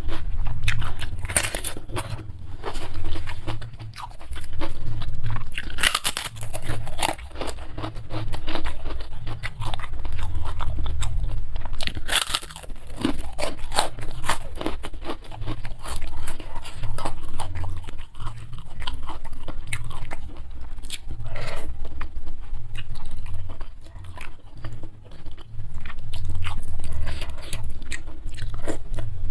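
Close-miked eating: steady chewing with wet clicks and a low thumping, broken every few seconds by louder crunchy bites into crisp food.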